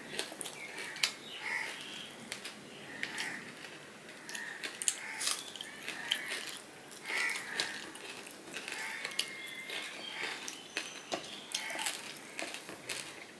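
Fingers mixing cooked rice and fried hilsa fish on a plate: soft wet squishing with many small clicks and taps.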